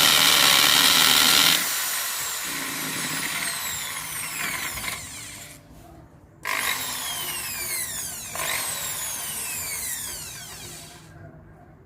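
Makita hammer drill running free at full speed, then the trigger is let go about one and a half seconds in and the motor coasts down with a falling whine. It is briefly run up twice more, about six and a half and eight and a half seconds in, and each time winds down again.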